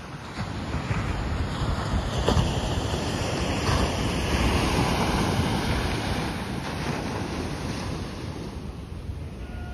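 Sea surf washing onto a sandy beach, with wind buffeting the microphone in a steady low rumble, loudest through the middle.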